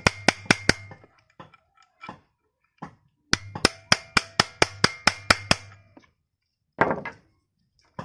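Hammer tapping on the metal of an electric planer during a bearing change: two runs of quick, even strikes, about four a second, each run with a faint ringing. A short scraping rattle follows near the end.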